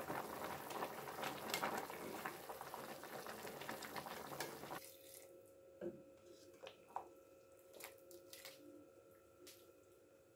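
A pot of beef-and-vegetable stew bubbling while a metal spatula stirs through it, a dense liquid noise with many small clicks that cuts off suddenly about halfway. After that, a quieter stretch with a faint steady hum and several single light clinks of a metal ladle against the steel pot.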